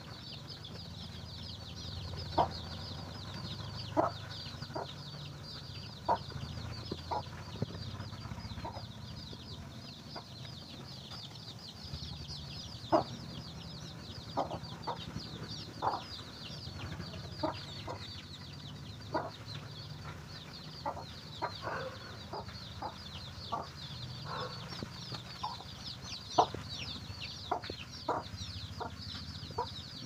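A mother hen clucking in short, irregularly spaced clucks while her chicks peep continuously in thin, high, falling cheeps.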